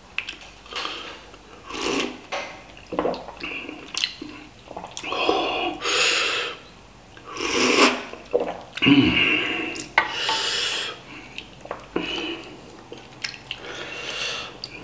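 A few wet slurps of hot soup broth sipped from a plastic ladle, with the ladle clicking and scraping against a metal pan between sips.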